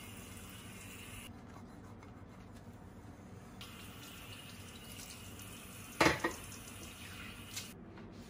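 Kitchen tap water running onto a frying pan in the sink as it is rinsed. The stream eases off for a couple of seconds, then comes back. A single sharp clatter about six seconds in is the loudest sound, and the water shuts off near the end.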